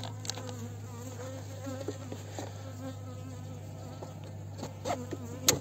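Honeybees buzzing around an open hive, several bees flying near and away with wavering buzzes. A sharp click just before the end.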